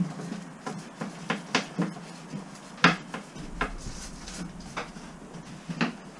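Irregular light knocks and clicks of things being handled and moved around on a bus floor during repair and cleaning work, the sharpest knock about three seconds in.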